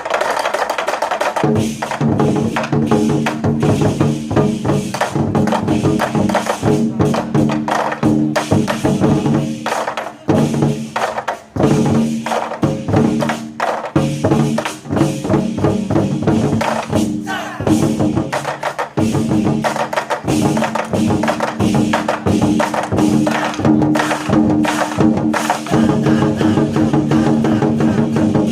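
A troupe of Chinese war drums struck in fast, dense rhythm, over steady pitched musical accompaniment.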